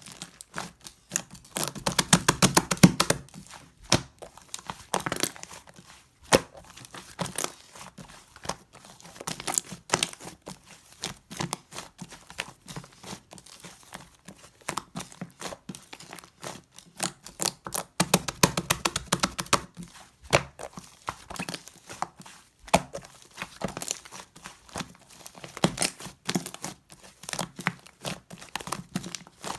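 Fluffy shaving-foam slime being squished, poked and stretched by hand, giving a steady stream of small crackling pops and clicks, thickest about two seconds in and again around eighteen seconds.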